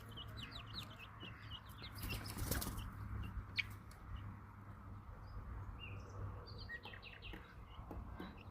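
Young chicks peeping: many short, high chirps overlapping one another, faint over a low steady rumble.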